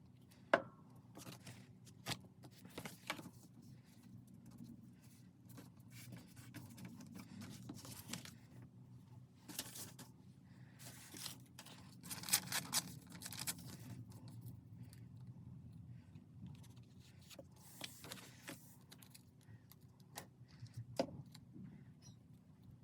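Paper and craft materials being handled: rustling, scraping and scattered small clicks and taps, with a longer patch of rustling about halfway through, over a low steady hum.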